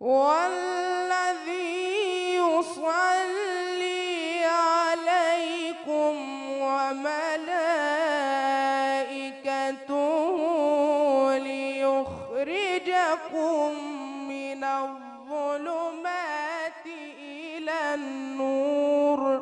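A young man's voice in melodic, drawn-out Quran recitation through a microphone, holding long, ornamented notes whose pitch wavers and glides, with a few short breaks for breath.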